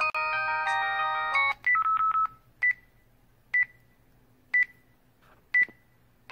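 Mobile phone low-battery alert tones. A short stepping electronic jingle ends about a second and a half in, then a quick run of short beeps, then single high beeps about once a second, four times.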